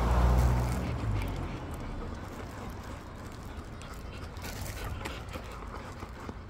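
A low rumble fades out over the first second or so. Then golden retrievers shift about close by, with faint scattered clicks and scuffles.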